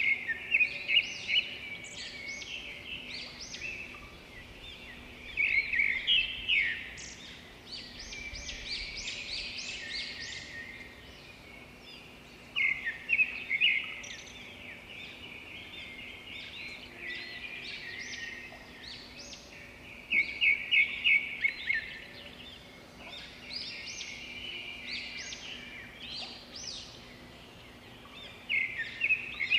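Small birds chirping and twittering, with louder runs of rapid chirps every six to eight seconds, over a faint steady hum.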